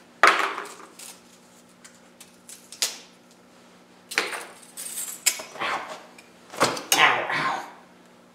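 A coiled steel band saw blade springing open, with a sharp metallic clatter just after the start. Scattered rattles and scrapes follow as the blade flexes and knocks against the saw, with a longer burst of rattling about two-thirds of the way in.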